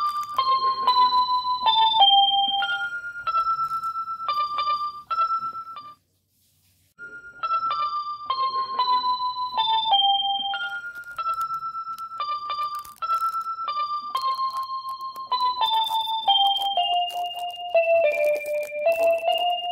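Background music: a simple keyboard melody of single notes stepping downward in phrases, with light percussion. It drops out completely for about a second about six seconds in.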